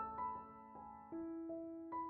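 Background music: a slow, gentle piano melody, single notes struck every half second or so and left to ring out.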